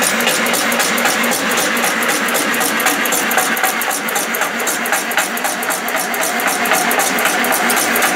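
Automatic incense stick making machine running, its feed and extruder mechanism clattering in a rapid, even rhythm of several strokes a second over a steady motor hum.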